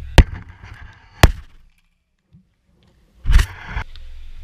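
A volleyball slams into the camera with a sharp, loud hit, followed by a second knock about a second later. After a short silent gap comes a loud burst of knocking and scraping near the end.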